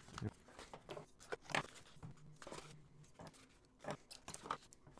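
Small cardboard ink-bottle boxes being handled and opened with a folding pocket knife: scattered faint clicks, taps and scrapes of card and blade.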